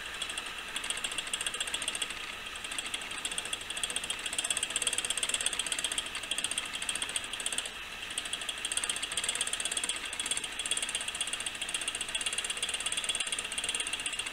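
Antique English eight-day longcase clock movement by Finnemore & Son, its brass wheel train and anchor escapement running by itself in a rapid, continuous ticking whirr.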